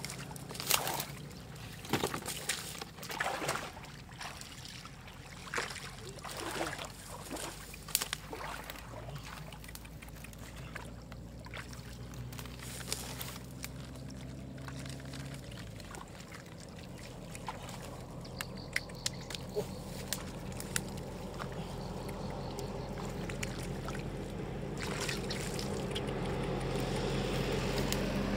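Splashing and sloshing in shallow muddy water as fish thrash and are grabbed by hand, with sharp splashes in the first eight seconds and fewer, lighter ones after. A low steady hum runs underneath and grows louder near the end.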